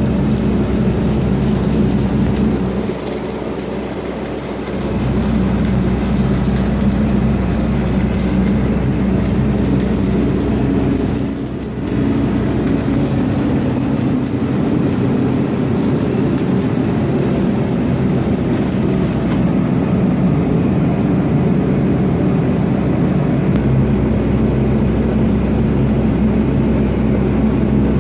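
Stick welding arc crackling and hissing steadily as 1/8" 7018 rod is run at about 125 amps, over the steady hum of the engine-driven Lincoln Vantage 300 welder. The sound drops briefly twice, a few seconds in and again about twelve seconds in.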